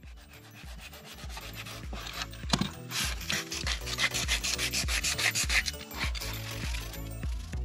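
Sandpaper on a wooden-handled hand sanding block, rubbed back and forth over painted wooden slats in quick, repeated rasping strokes. It is scuffing the old paint to prepare the wood for repainting. The strokes grow louder about three seconds in.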